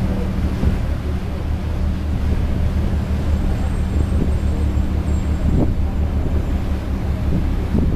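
Steady low rumble of ship engines with wind buffeting the microphone.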